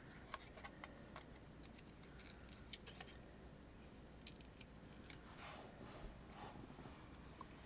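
Faint, scattered small clicks and crackles of paper handling: foam adhesive dimensionals being peeled off their backing sheet and pressed onto the back of a cardstock circle.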